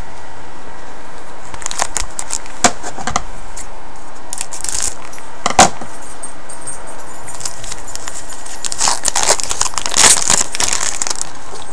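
Trading cards handled with gloved hands: rustling and light clicks as the cards are slid, sorted and stacked, with one sharper click a little past halfway and a longer run of rustling near the end, over a steady hiss.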